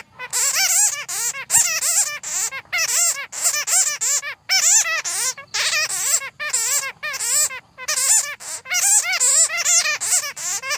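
Bats chattering: rapid, high, wavering squeaky calls in dense runs, broken by brief pauses.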